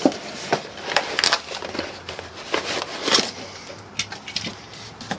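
Cardboard and plastic packaging rustling and scraping in irregular bursts, with small clicks, as a boxed PC case fan is unpacked by hand.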